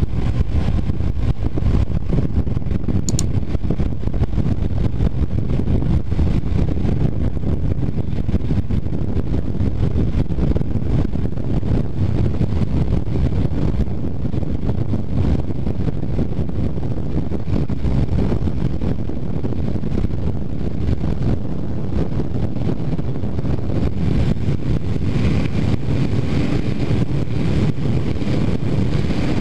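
Honda CBR250R motorcycle cruising at speed: steady wind rush over the bike-mounted microphone with the engine running underneath.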